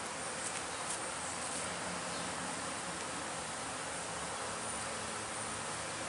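Honey bees buzzing steadily in the air around a hive, an even, unbroken hum of many bees flying at once.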